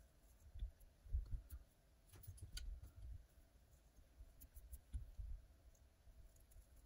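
Faint scattered crisp clicks of a razor blade slicing through a spun deer belly hair fly head, over soft low bumps of hands working at the vise.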